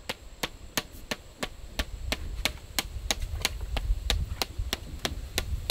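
A hammer striking the top of a pipe stake, driving it into the ground with steady, evenly spaced blows, about three a second.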